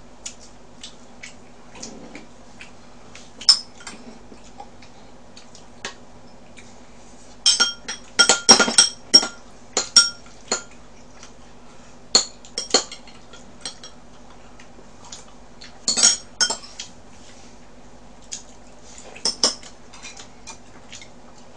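Tableware clinking: chopsticks and utensils knocking against bowls and a frying pan in scattered sharp clinks, coming in small clusters, the busiest about a third of the way in. A faint steady hum runs underneath.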